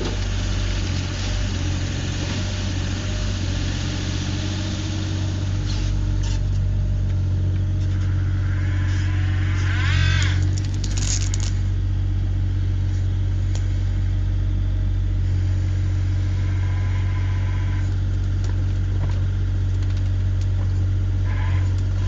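Kubota KX040-4 mini excavator's diesel engine running steadily under a low hum, with a brief louder rush of higher sound about ten seconds in.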